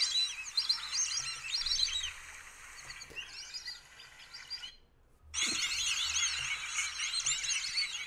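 A flock of white-faced whistling ducks calling: many high, clear whistles overlapping one another. About five seconds in they break off briefly, then resume as densely as before.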